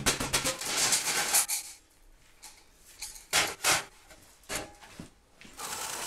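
Rough rubbing and scraping strokes of hand metalwork: a dense run for about the first second and a half, then a few separate short strokes.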